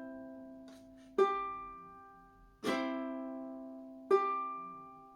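Ukulele played on a C chord in a pluck-and-strum pattern: the thumb plucks the G string alone, then a down-strum sounds the other three strings. A pluck about a second in, a strum near the middle and another pluck near the end, each left to ring and fade.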